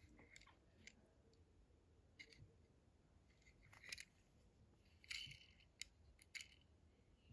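Faint, scattered clicks and light rustles of a small diecast toy car being handled, with its plastic and metal parts lightly tapping. The loudest clicks come about four and five seconds in, over near silence.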